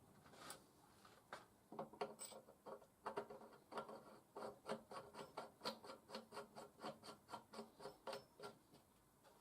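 Hand-tool work on metal parts: a run of short rubbing or scraping strokes, about three a second, starting about two seconds in and stopping near the end.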